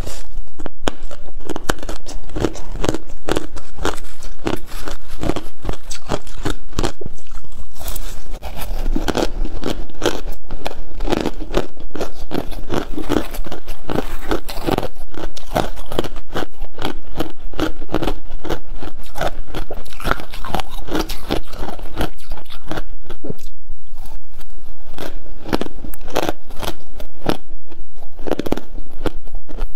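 Close-miked crunching of refrozen freezer frost being bitten and chewed, a dense stream of rapid crackles, mixed with a metal spoon scraping and scooping through the frost in a silicone bowl.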